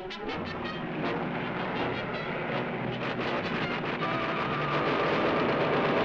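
Propeller aeroplane engine droning overhead, pulsing at first and then steady, growing louder about four seconds in.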